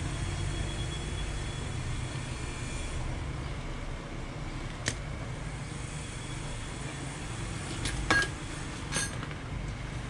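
Steady low background rumble, with a sharp click about five seconds in and a few louder clicks and knocks around eight to nine seconds as hand tools are set down and picked up on a wooden workbench.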